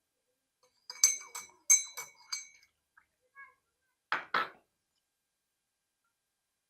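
A spoon clinking against the cup about five times in quick succession, each strike ringing briefly, as honey and lemon are stirred into hot water. A couple of seconds later come two short breathy puffs.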